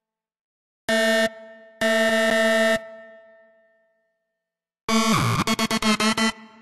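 Buzzy synthesizer lead notes from FL Studio's 3xOsc: one short note about a second in and a longer one a second later as notes are placed in the piano roll, then near the end the pattern plays back as a fast stuttering run of the same note.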